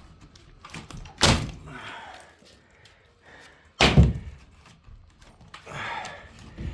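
Two heavy thuds about two and a half seconds apart, with lighter knocks between them, as plaster cornice glued on with cornice cement is knocked and pried off the wall.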